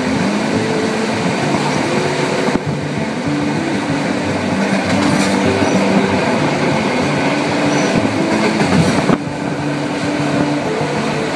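Train running at speed, heard from inside the carriage: a steady loud rumble with wavering hum tones, dropping suddenly about nine seconds in.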